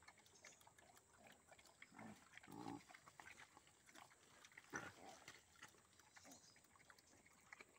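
Pigs, a sow with her small piglets, grunting faintly: a few short grunts spread out with quiet between them.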